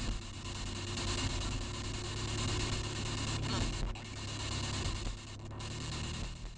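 Spirit box sweeping through radio stations: a steady hiss of static, broken by brief dropouts about four and five and a half seconds in, over the low drone of the car driving.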